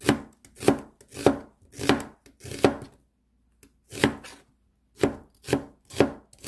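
Chef's knife slicing a half onion into strips on a plastic cutting board: about ten separate cuts, each ending in a knock of the blade on the board, at an unhurried pace with a short pause in the middle.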